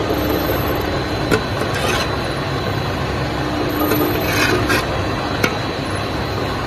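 A steady rushing mechanical noise with a faint on-and-off hum, broken by two sharp clicks and a brief rustle about four and a half seconds in.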